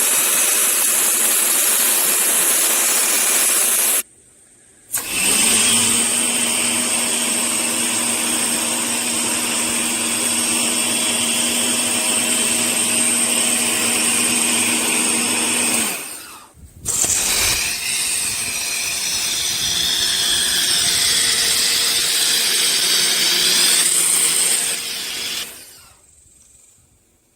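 RunInMist 1800 PSI electric pressure washer running with a steady motor hum and hiss, in three stretches broken by short drops to quiet about four and sixteen seconds in, fading out near the end.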